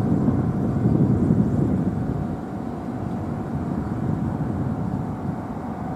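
Low, steady vehicle rumble that eases slightly about two seconds in, with a faint steady tone above it.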